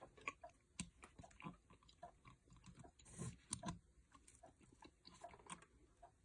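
Faint, irregular small clicks and crinkles of gloved hands working the CPU socket's metal retention lever and load plate on a motherboard, a few slightly louder ticks among them.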